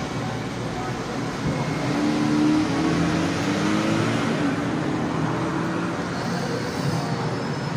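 Road traffic: a motor vehicle going by, its engine note rising slightly for a few seconds in the middle over a steady noise.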